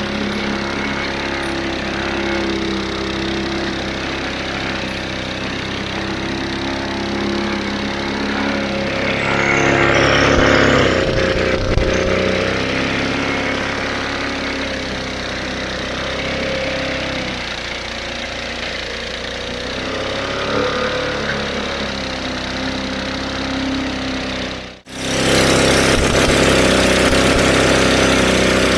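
Briggs & Stratton 125cc single-cylinder lawnmower engine running steadily. Near the end the sound cuts out for a moment and returns louder and rougher.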